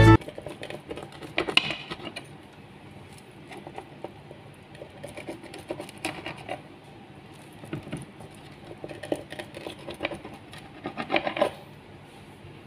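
Rolling pizza cutter wheel slicing through a baked pizza crust against the plate, heard as short bursts of scratching and crunching clicks several seconds apart.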